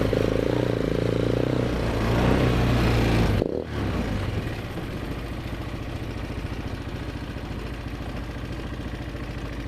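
ATV engine running steadily, then about three and a half seconds in the sound breaks off abruptly and goes on quieter and even, like an idle.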